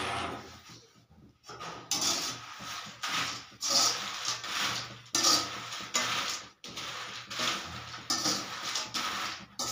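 A metal spatula scrapes and stirs peanuts dry-roasting in gravel (bajri) in a metal kadhai, in repeated rasping strokes roughly one a second.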